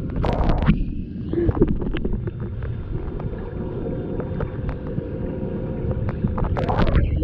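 Water heard through a submerged camera in a swimming pool: a steady muffled low rumble with scattered bubbly clicks and crackles. The crackling is thicker just after the start and again near the end.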